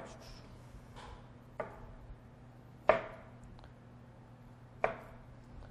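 Chef's knife cutting broccoli florets on a plastic cutting board: about five separate cuts, each a sharp knock of the blade on the board, the loudest about three seconds in.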